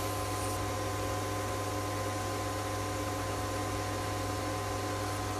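Sieg C3 mini metal lathe running at steady speed, a constant motor hum with a whine, while 240-grit abrasive paper is held against the spinning stainless steel cone. This adds an even hiss.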